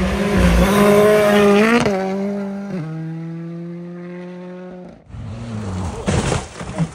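Rally car at full throttle on a gravel stage, its engine revving high and changing up twice in quick succession as it pulls away, then fading. About five seconds in, a different rally car is heard coming in, its engine rising and falling with the throttle.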